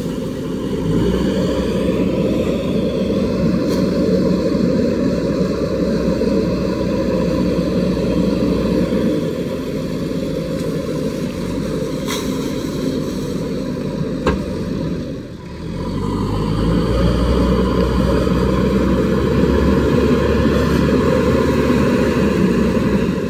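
JCB 3DX backhoe loader's four-cylinder diesel engine running steadily under load, with water splashing as the loader bucket pours river water over the machine and the wheels push through the river. The engine sound dips briefly about fifteen seconds in, then runs on.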